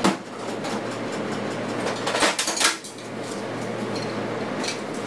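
Metal hand tools clinking and rattling: a sharp clink at the very start, a cluster of clattering about two seconds in, and one more light clink near the end. A steady low hum from a fan runs underneath.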